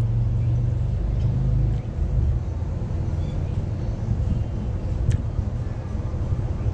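Low rumble of a motor vehicle engine running nearby. It drops off about two seconds in, leaving a rougher low rumble, with a faint click later on.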